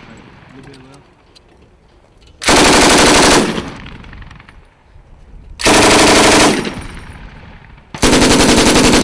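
M240B 7.62 mm medium machine gun firing three short bursts of automatic fire, each about a second long and a few seconds apart, each burst trailing off in echo.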